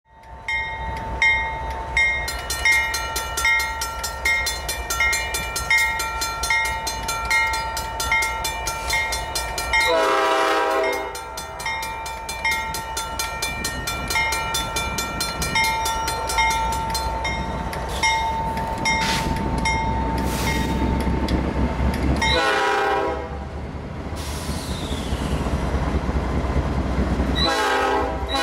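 Norfolk Southern diesel freight locomotives approaching with a low rumble while a bell rings at a steady beat, about one and a half strokes a second. The lead locomotive sounds its chime horn in a short blast about ten seconds in, another about twenty-two seconds in, and a longer one starting near the end.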